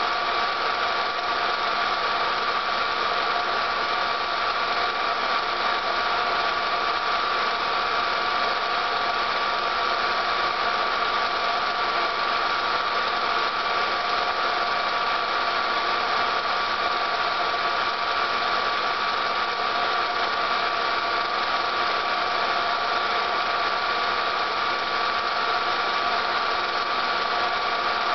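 Film projector running: a steady motor hum and whir with a constant whining tone, the same throughout.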